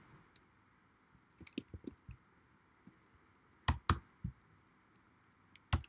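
A few scattered keystrokes on a computer keyboard, with quiet room tone between them: a light cluster about a second and a half in, two sharper clicks near four seconds, and another pair just before the end.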